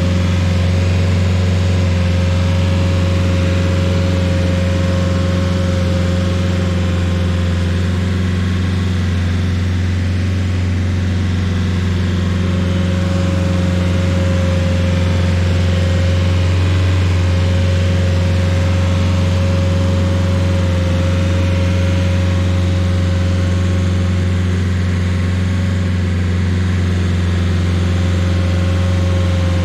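Rayco Super RG50 stump grinder running steadily: a constant engine drone with a thin, steady whine above it that drops out for a few seconds about a third of the way in.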